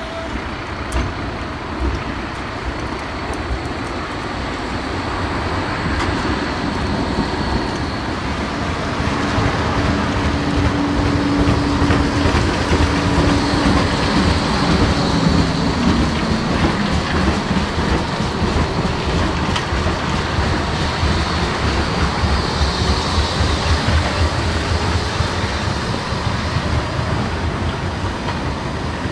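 A Flexity 2 electric tram running past on street track: wheels rolling on the rails and a motor whine. The sound builds as the tram draws level, and the whine drops in pitch about halfway through as it goes by.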